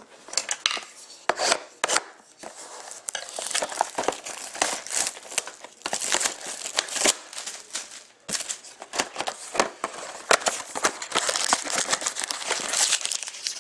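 Plastic shrink-wrap being torn and crinkled off a sealed box of trading cards, with the cardboard box handled: a dense, irregular run of crackles and rustles, busiest from about three seconds in.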